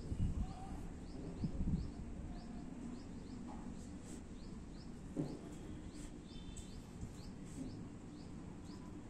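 Outdoor ambience with a short, high chirp repeated about twice a second, and a few low thumps near the start.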